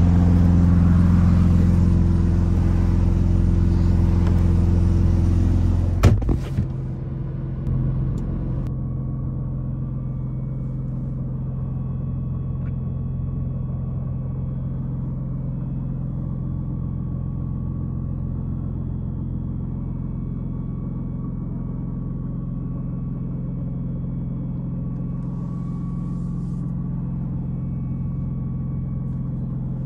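McLaren Artura's twin-turbo V6 idling steadily. About six seconds in there is a sharp thud, and after it the idle is quieter and more muffled.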